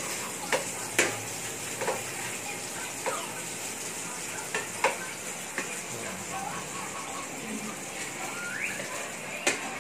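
Metal spatula clinking and scraping against a metal wok while garlic and onion are stir-fried, over a steady sizzle. About eight sharp clinks come at irregular intervals, with a few short squeaky scrapes near the end.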